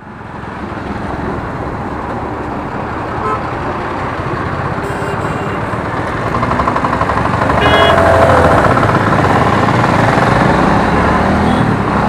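Riding a motorcycle through road traffic: steady wind and road noise with the engine running, getting louder in the second half. A vehicle horn honks briefly about seven and a half seconds in.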